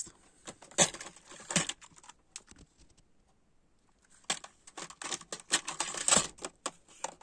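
Small clear plastic drawers of a parts organizer being pulled out and handled, with their loose electronic components shifting inside: a few sharp plastic clicks in the first two seconds, then a dense run of clicking and clatter from about four seconds in.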